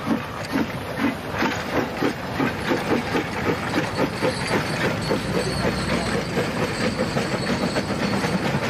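Steam locomotive working, its exhaust beats quickening from about two a second to about four as it gathers speed, then running together into a steady rush of noise in the second half.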